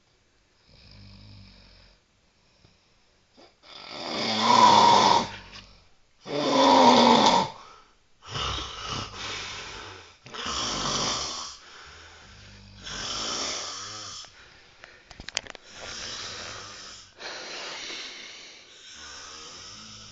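Heavy snoring in sleep: a faint snore about a second in, two loud snores around four and seven seconds in, then softer snores repeating about every one and a half to two seconds. A brief patter of clicks falls about three quarters of the way through.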